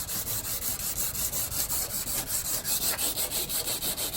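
Sandpaper rubbing by hand over the clear-coated surface of a carbon fiber car hood in quick back-and-forth strokes, about four a second: wet-sanding to take off the old clear coat.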